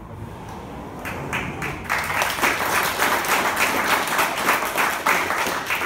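Audience applauding. The clapping starts faintly about a second in, builds to full over the next second, and begins to thin out at the end.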